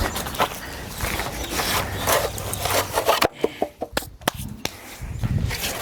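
Scraping and knocking of hand tools on wood and soil, with a quick run of sharp taps about three and a half seconds in.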